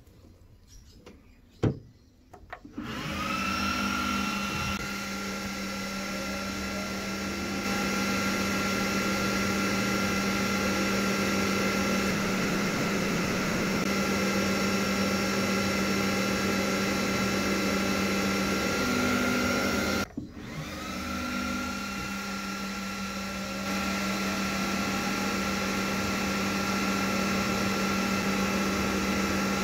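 Fan and blower of the xTool S1 laser cutter setup spinning up with a rising whine that settles into a steady high hum over a low drone, getting louder in steps a few seconds later. It cuts out abruptly about twenty seconds in and at once spins up again the same way. A sharp click comes a couple of seconds before the first start.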